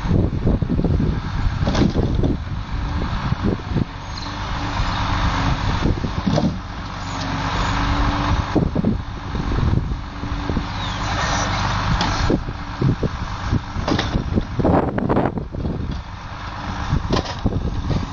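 Volvo timber lorry's diesel engine running and driving a Loglift 96S crane's hydraulics, its sound swelling and easing as the crane swings, with several sharp knocks of pulpwood logs striking together as the grapple loads them.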